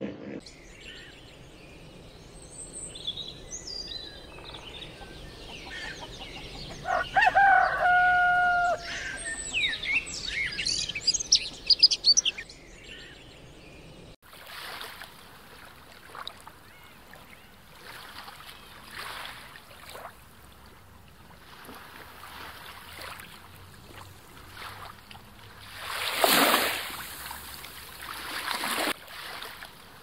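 Wild birds chirping and calling, with one longer call held at a steady pitch about a quarter of the way in. After a sudden change about halfway, sea water washes over rocks in a rushing sound that swells and fades several times, loudest near the end.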